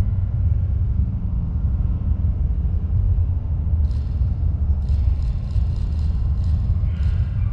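Lakeshore ambience dominated by a steady low rumble. About halfway through, a run of short, quick sounds begins, several a second, with a brief pitched call near the end.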